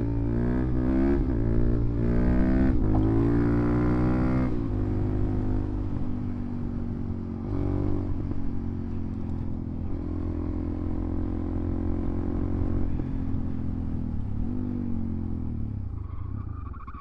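Suzuki DRZ400SM's single-cylinder four-stroke engine revving hard through the gears for the first few seconds. It then runs at a steadier speed with a few brief rises and dips, and drops off near the end.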